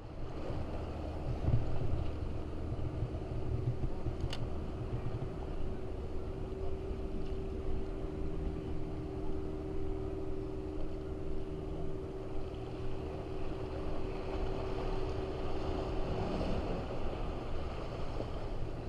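Wind and small waves washing against the rocks of a jetty. A steady low hum sets in about six seconds in and stops a few seconds before the end.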